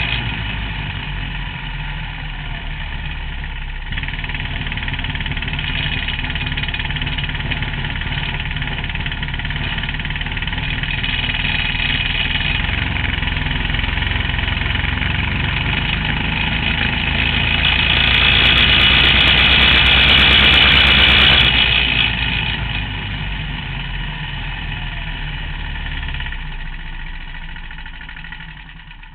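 Vehicle engine running steadily. It grows louder to a peak about twenty seconds in, drops back, then dies away near the end.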